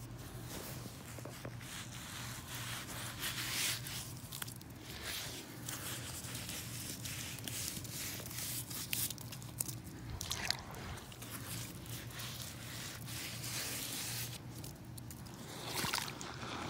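Rubber muck boots squelching and sucking in thick wet mud as the wearer shifts and treads, in irregular wet squishes with a few sharper clicks.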